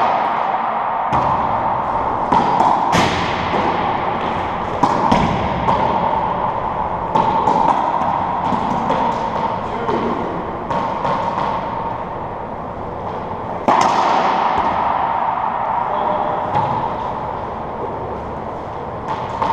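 A racquetball cracking off racquets, the front wall and the floor at irregular intervals, each hit ringing out in the enclosed court's echo, with a lull in the middle before a loud hit about three quarters of the way through.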